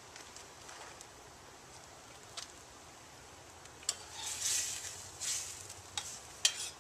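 Metal spoon stirring shrimp and chicken broth in a steaming skillet: several light clicks of the spoon against the pan, with a louder stretch of sizzling and scraping about two-thirds through.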